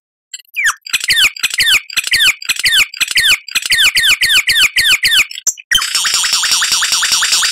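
Lyrebird singing: a fast series of whistled notes, each sweeping down in pitch, about four a second, followed near the end by a dense, harsher rattling passage.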